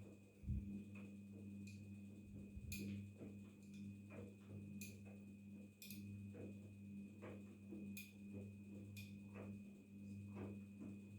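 Daewoo DWD-FT1013 washing machine running early in a cotton 40°C cycle: a steady electrical hum with a faint high whine over it, and irregular light clicks and ticks.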